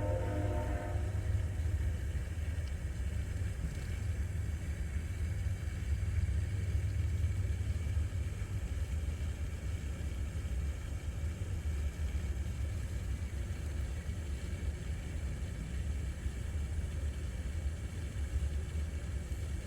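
A train horn sounding a chord of several notes that stops about a second in, followed by the steady low rumble of the train passing.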